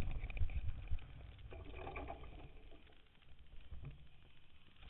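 Mountain bike rolling over a wooden track, heard through a camera mounted on the bike: a low rumble with irregular knocks and rattles, heaviest in the first second, and a brief clatter about two seconds in.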